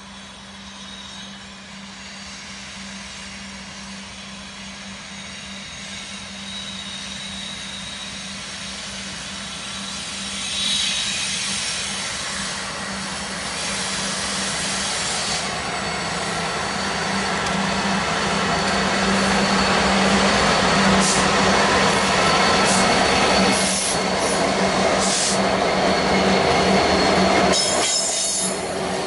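A diesel-hauled train approaching, its steady engine drone and rolling wheel noise growing louder over about twenty seconds, with a thin high wheel squeal above it.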